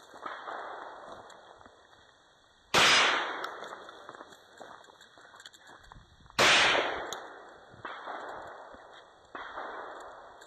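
Gunshots: two loud shots about three and a half seconds apart, each with a long fading tail, and three fainter shots around them.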